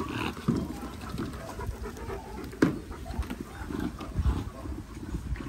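A dog panting in quick, repeated breaths, with one sharp knock about two and a half seconds in.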